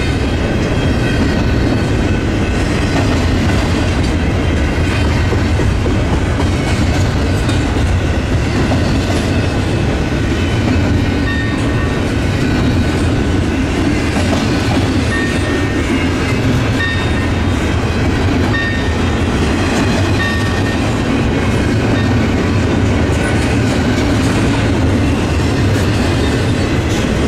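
Double-stack intermodal freight cars rolling past at close range: a steady, loud rumble of steel wheels on rail with rhythmic clickety-clack over the rail joints.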